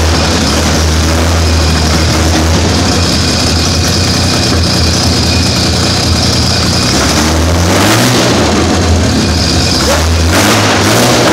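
Jaguar 4.2-litre DOHC straight-six running on carburettors through open headers with no exhaust fitted, on its first run after installation. It holds a steady idle and rises briefly in engine speed a couple of times in the second half.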